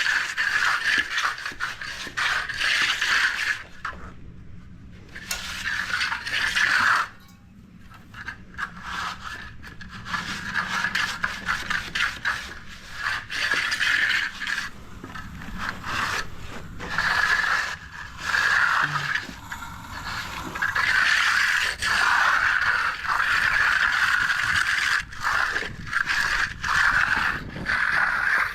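A steel finishing tool, such as a hand trowel or float, scraping across the surface of a freshly poured concrete slab in repeated strokes as colour hardener is worked in and edger marks are smoothed out.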